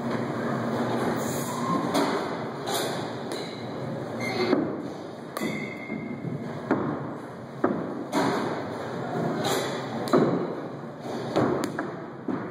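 Sharp thumps and knocks, about one a second and irregular, over steady background noise: a baseball bat hitting pitched balls and balls striking the cage netting and padded walls.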